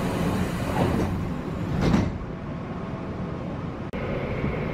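Commuter train's sliding doors closing: a hiss, then a thud as they shut about two seconds in. About four seconds in, the train is heard running along with a steady hum.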